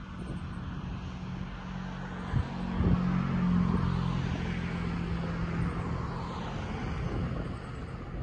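A motor vehicle passing by: an engine hum grows louder about three seconds in, then fades away. There are a couple of brief thumps near the peak.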